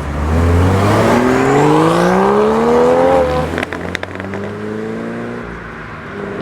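Toyota GR Supra Mk5's turbocharged B58 inline-six accelerating hard, its pitch rising steadily for about three seconds. A gear change follows with a brief burst of exhaust crackles, and then the engine pulls again, rising and quieter.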